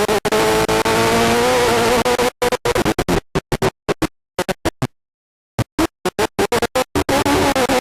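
Class 10 desert race buggy engine heard from inside the car, its pitch rising and falling with throttle. The sound keeps cutting out abruptly, with one gap of about a second past the middle, so it stutters.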